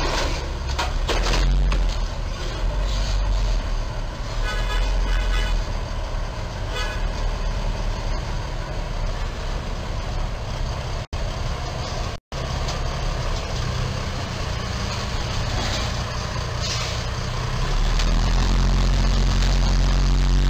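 Semi-truck diesel engine running in street traffic, with a few short horn toots about four to seven seconds in. The engine rumble gets louder and steadier near the end.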